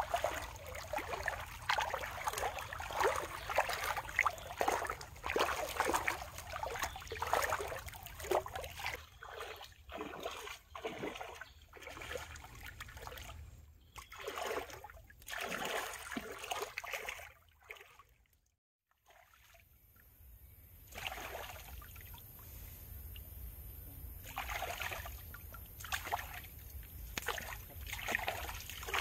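Legs wading through a shallow muddy stream: irregular splashing and sloshing of water with each step, dense at first and sparser later, dropping out for a moment about two-thirds through. Near the end, hands swishing in the water.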